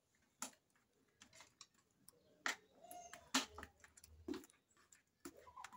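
A handful of faint, irregular clicks and light knocks, the loudest about three and a half seconds in.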